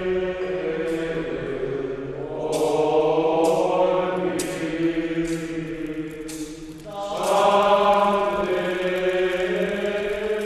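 Choral chant: voices sing long, held notes in a slow melody, and a new, louder phrase begins about seven seconds in. Light, short clinks sound about once a second over the first six seconds or so.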